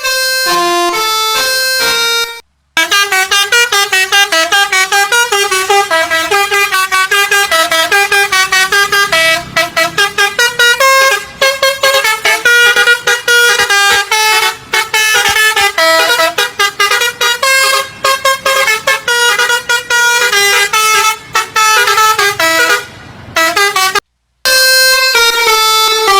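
Basuri multi-tone bus air horn ('telolet') playing a fast melody of short notes in quick succession. It breaks off briefly twice.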